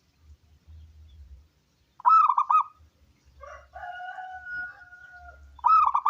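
Zebra dove (perkutut) cooing: a loud rolling phrase about two seconds in and again near the end, with a softer drawn-out note between them.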